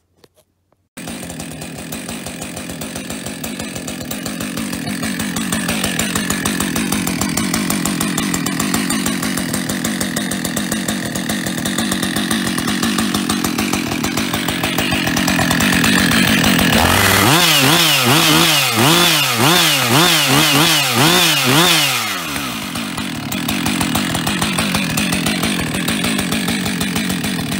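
Husqvarna 562 XP two-stroke chainsaw engine, newly fitted with a replacement piston, starts up about a second in and idles. About two-thirds of the way through it is revved up and down repeatedly, roughly twice a second for about five seconds, then drops back to idle. The piston-slap rattle is nearly gone; the owner thinks the little that remains may be the centrifugal clutch.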